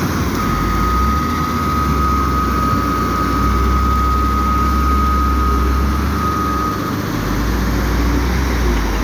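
Caterpillar wheel loader's diesel engine running under load with a steady low rumble while it carries and lifts a bucket of crushed stone. A steady high whine sits over the engine from about half a second in until about seven seconds.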